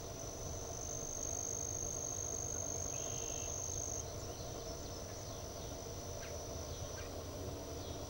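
Continuous high-pitched song of insects in summer foliage, louder from about one second to four seconds in, over a low steady background rumble.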